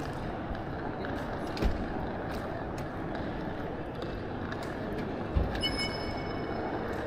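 Steady rumble of outdoor city background noise, with two low thumps a few seconds apart and a brief high ringing tone near the end.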